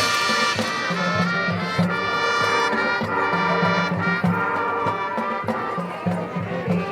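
High school marching band playing, the brass holding sustained chords over a steady pulsing beat in the low end.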